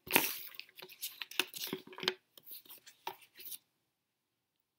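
Computer keyboard keys clicking in a quick irregular run as text is deleted. The clicks stop about three and a half seconds in.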